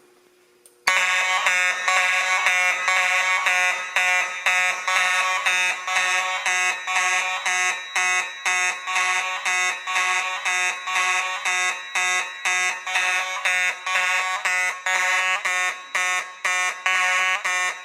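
Fire alarm sounding after a manual pull station is pulled: a loud, buzzy tone starts about a second in and pulses rapidly and evenly.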